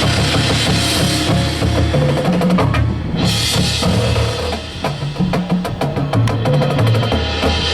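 A marching drumline playing: rapid snare-drum strokes over tuned bass drums stepping between notes, with a brief cymbal-like swell about three seconds in.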